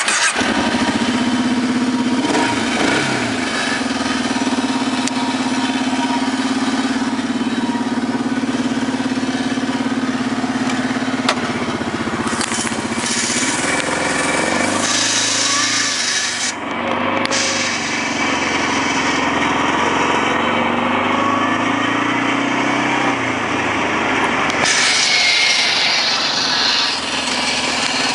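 2004 Arctic Cat 650 ATV's V-twin engine catching and running, its note rising and falling a few times as it is revved.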